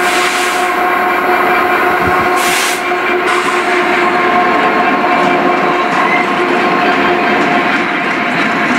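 DB Class 66 diesel locomotive's EMD two-stroke V12 engine running with a steady drone as it hauls a freight train of steel-coil wagons past, the wagon wheels rumbling over the rails. Two brief hissy bursts at the start and about two and a half seconds in.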